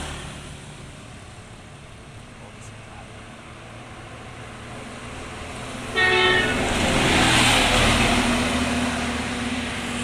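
Passing bus sounding a short horn blast about six seconds in, followed by the rushing noise of the bus going by close, which swells and then fades.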